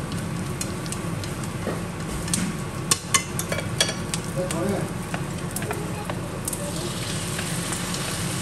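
Chopped aromatics sizzling in oil in a frying pan, with a run of sharp clicks from chopsticks against the pan and bowl about two to four seconds in. Near the end the sizzle grows louder and hissier as raw duck pieces are tipped into the hot pan.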